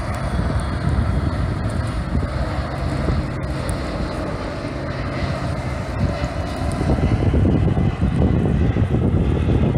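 Airbus A330 airliner on final approach, gear down: a steady low jet-engine rumble. Wind buffets the microphone, growing louder over the last few seconds.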